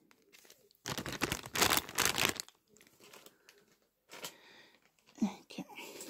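Plastic packaging and a small bag's contents crinkling and rustling as items are handled: a burst lasting about a second and a half, then a few fainter rustles.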